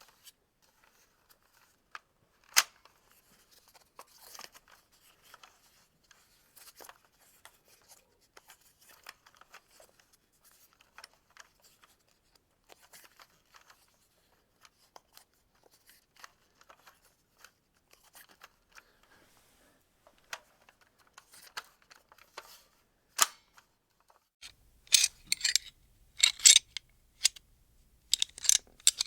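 Foam-dart toy gun being loaded: sparse small plastic clicks and rustles. Near the end, louder, denser clicks and rattles of gun parts being handled, over a faint low hum.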